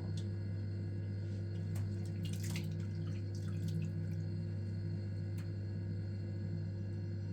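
A steady low electrical or mechanical hum with a few light clicks and drips, the loudest cluster about two and a half seconds in.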